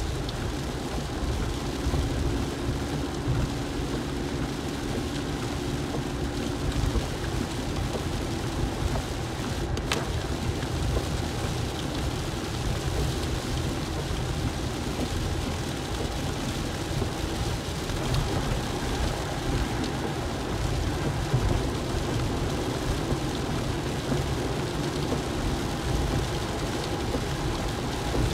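Steady road noise of a car driving on a rain-soaked road, heard from inside the cabin: tyres on wet asphalt and rain on the car. A low steady hum rises above it between about two and seven seconds in, and there is a single click about ten seconds in.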